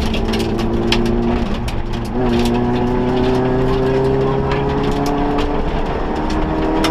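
Rally-prepared Vauxhall Nova's engine heard from inside the cabin, pulling hard. About a second and a half in it dips briefly for a gear change, then climbs steadily in pitch as the car accelerates.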